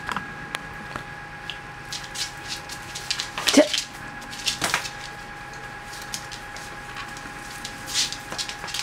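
A dachshund's claws clicking and scrabbling on a wooden floor as it plays with a soft fabric frisbee toy, in irregular ticks and scuffs. Two short sounds that fall in pitch come about three and a half and four and a half seconds in, over a faint steady hum.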